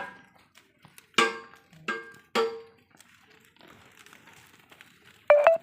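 A few short ringing clanks with sudden starts that die away: three close together in the first half, and a louder one near the end.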